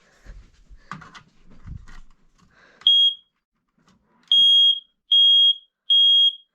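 Smoke alarm sounding during a test: faint rustling and knocks, then its loud, high-pitched beep starts about three seconds in. One short beep is followed by a run of three beeps about a second apart, the alarm's three-beep pattern.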